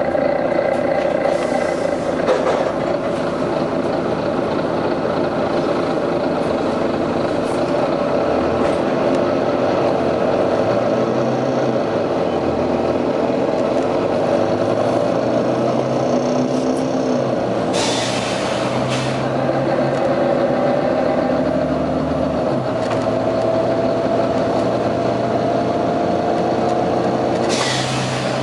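Volvo B9TL double-decker bus's diesel engine working hard with a loud thrash, its pitch falling and rising with gear changes and road speed. Two short air hisses, one past halfway and one near the end.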